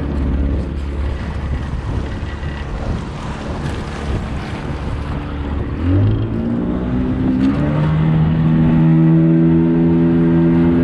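Small outrigger fishing boat's engine running under way, with water rushing past the hull. About six seconds in the engine speeds up, its pitch rising and settling into a higher, louder steady hum.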